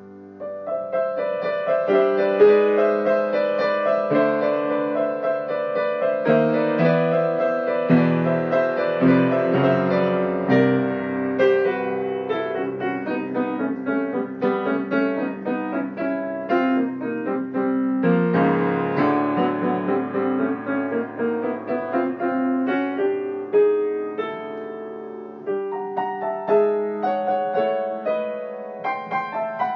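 Solo piano improvising in dense chords: open fifths with the bass note doubled in the left hand against thirds and fourths in the right, the chords shifting by semitones and tritones. It thins out into more separated chords in the last few seconds.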